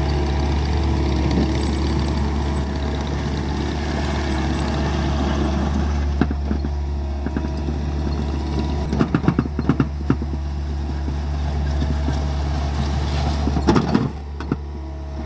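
Bobcat compact track loader's diesel engine running steadily, with bursts of gravel crunching and scraping under the toothed bucket as it grades crushed-and-run stone, about nine seconds in and again near the end.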